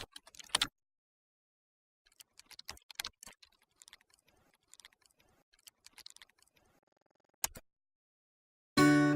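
Irregular small clicks and ticks, with one sharper click about seven and a half seconds in. Acoustic guitar music starts just before the end.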